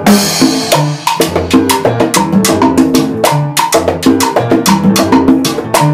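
Cuban danzón played by a small band, with busy timbales and hand-percussion strokes in a steady rhythm over double bass and piano. A bright crash sounds right at the start.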